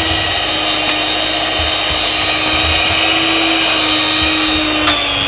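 Handheld electric mixer running steadily, its beaters whipping double cream into a whipped-cream topping. The motor whine shifts slightly in pitch near the end.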